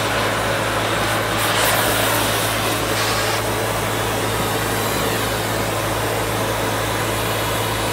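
Oxy-fuel cutting torch with a rivet gouging tip burning with a steady rushing hiss while it preheats a wrought-iron rivet head, over a constant low hum.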